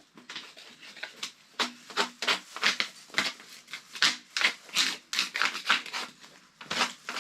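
A quick, uneven series of short scratchy strokes or taps, about two to three a second, like hand work with a tool or utensil.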